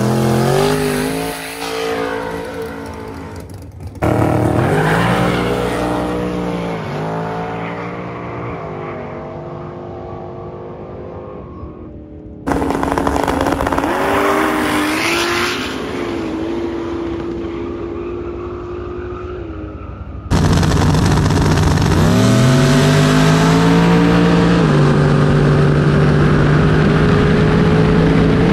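Drag-racing car engines in a series of separate runs, each revving and accelerating hard, the pitch climbing and falling back at gear changes. The sound changes abruptly about 4, 12 and 20 seconds in. The loudest stretch, near the end, is a steady full-throttle pull.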